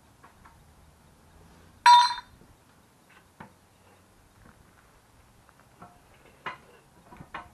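Metal parts clinking during handrail installation: one sharp, ringing clink about two seconds in, then a few light clicks and taps.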